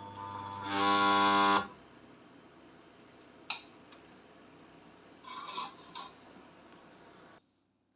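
Homemade microwave-oven-transformer spot welder firing: a loud mains buzz with a hissing edge for about a second. A few sharp clicks and knocks follow, about two and four seconds later.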